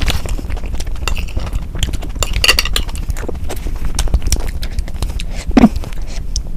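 Close-miked eating sounds: wet mouth clicks and chewing, with metal cutlery clinking against a glass plate a couple of seconds in. A short rising squeak comes near the end.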